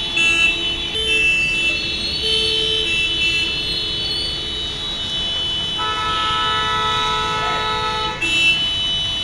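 Several vehicle horns in street traffic sounding in long, overlapping held blasts, the pitches shifting as one horn stops and another starts, over a steady hiss of rain.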